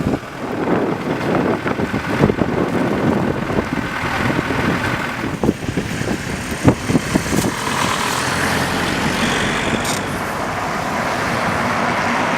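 Blizzard wind gusting and buffeting the microphone over the noise of city street traffic. From about two-thirds of the way in, a steadier vehicle noise takes over.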